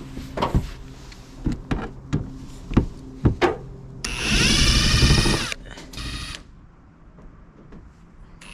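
A cordless impact driver runs for about a second and a half, backing a screw out of a trailer's roof vent flange, then gives a second, shorter burst. Before it, a series of sharp knocks and thumps.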